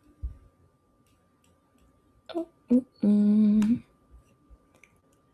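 A woman's voice: two short vocal sounds a little past two seconds in, then a held hum at a steady pitch lasting under a second. A soft low thump comes just after the start, and a faint steady tone runs underneath.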